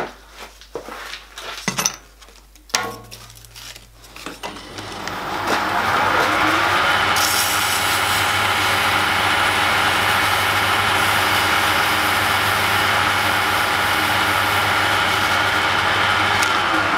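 Small metal lathe switched on after a few handling clicks: the spindle and three-jaw chuck run up over a couple of seconds, then run steadily with an even gear whine, starting to slow right at the end.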